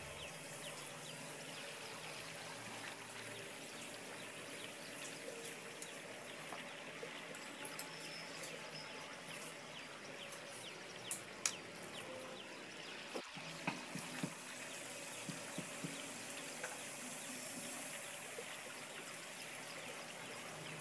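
Wheat-flour masala puri deep-frying in hot oil: a soft, steady sizzle with fine crackles, and a few sharper clicks about halfway through.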